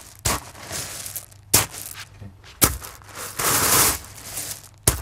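Foley sound effects: four sharp cracks or snaps, roughly a second apart, with rustling and scraping noise between them.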